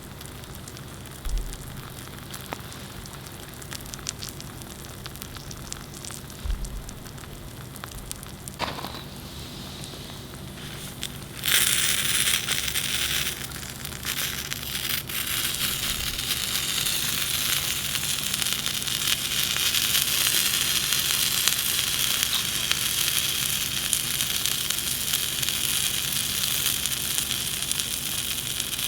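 A fire crackling with scattered sharp pops, then about eleven seconds in a loud sizzle starts suddenly as chikuwa topped with kimchi and cheese begins frying in a hot pan, and keeps sizzling steadily.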